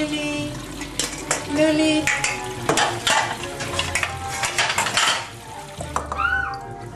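Kitchen clatter: dishes and utensils clinking and scraping, with a sizzling hiss through the middle and a few short pitched sounds near the start.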